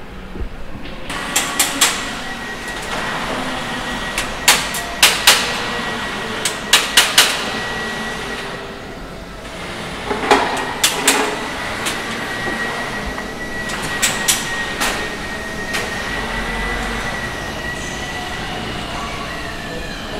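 Manual hand-chain hoist being hauled: the chain clanks and rattles in short clusters of sharp metallic clicks every few seconds, over a steady background hum with a faint high whine.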